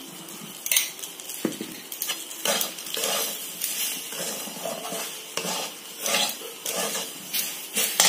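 Metal spatula scraping and stirring roasted semolina (sooji) and pineapple around a shallow metal pan, in irregular strokes with occasional sharper clinks of metal on metal. A light sizzle underneath as the mixture fries in the ghee just added.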